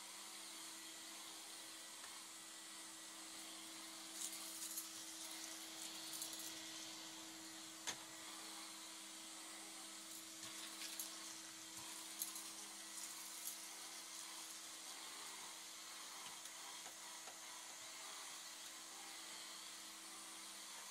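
Vacuum cleaner running steadily on carpet with a floor tool, a steady motor hum under a hiss. Between about four and thirteen seconds in come scattered sharp clicks and rattles of small debris being sucked up the wand.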